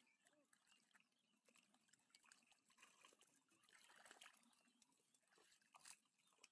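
Faint wet squelching and trickling of hands digging in soft mud and shallow water, with scattered small clicks, a little louder about four seconds in.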